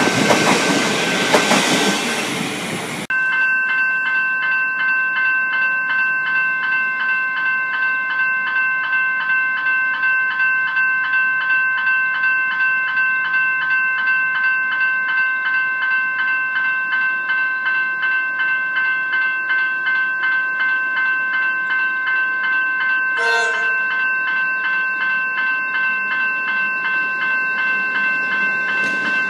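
An X'Trapolis electric multiple-unit train running past close by for the first few seconds. It then gives way to level-crossing warning bells ringing in a fast, steady, regular pattern, with a short horn blast from an approaching train about three-quarters of the way through.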